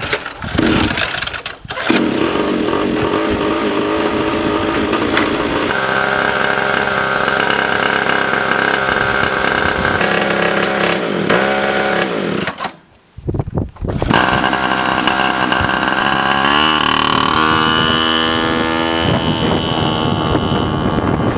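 Small minibike engine running and being revved, its pitch rising and falling several times, with a brief break about two-thirds of the way through.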